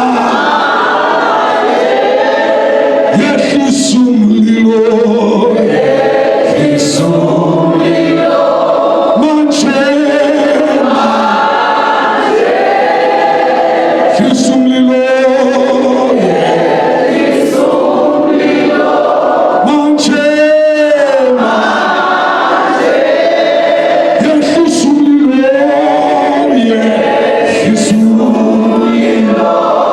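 Church congregation singing a gospel chorus together in Xhosa, unaccompanied, with one strongly wavering voice standing out about two-thirds of the way through.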